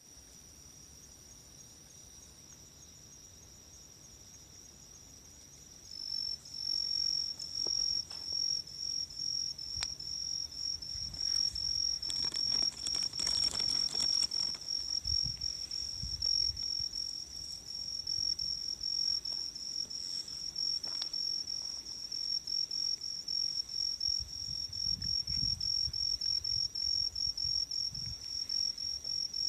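Night insects chirping in a fast, even, high-pitched pulse, faint at first and much louder from about six seconds in. A brief rustle about twelve seconds in.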